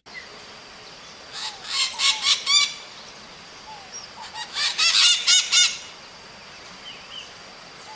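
Maritaca parrots calling: two bursts of rapid, harsh, repeated screeches, the first about one and a half seconds in and the second around five seconds in, with a few faint single chirps between.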